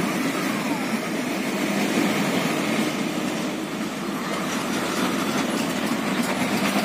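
Heavy diesel trucks, among them an old Mitsubishi truck-trailer, driving past in traffic with a steady engine and tyre rumble.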